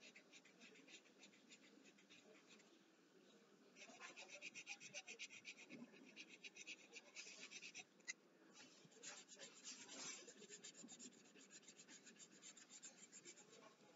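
Pencil shading on paper: faint, quick back-and-forth scratching strokes, several a second, with a short break about eight seconds in.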